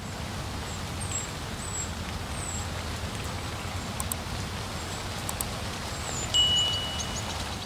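Steady outdoor hiss with a low rumble beneath it, in the manner of rain, and a few short, high, falling chirps over the top. A thin high tone holds for about a second near the end, and the hiss fades out.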